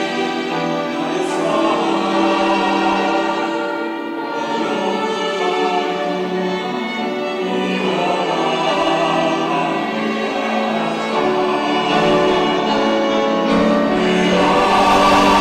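Church choir singing a Sunday anthem in sustained, held notes, growing louder near the end.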